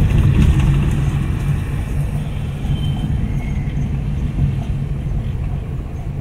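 Steady low rumble of a car's engine and tyres on a stone-paved street, heard from inside the cabin while driving slowly.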